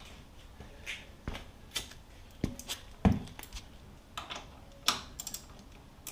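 Socket wrench and hand tools clinking and knocking as a socket is fitted to a motorcycle's brake caliper bolts: scattered sharp clicks and knocks, the loudest about three seconds in.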